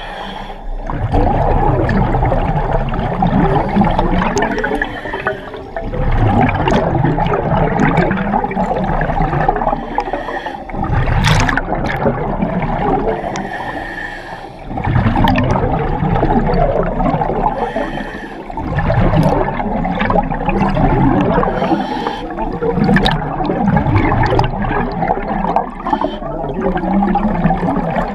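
Underwater bubbling and rushing water, loud and continuous. It comes in long surges broken by short quieter dips every four to five seconds, with scattered sharp clicks.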